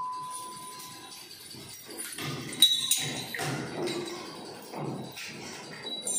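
Small steel parts and bolts clinking as they are handled, with one sharp, ringing clink about two and a half seconds in.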